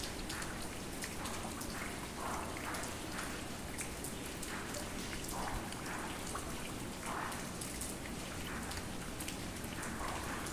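Rain falling: a steady hiss with many sharp individual drop hits scattered through it.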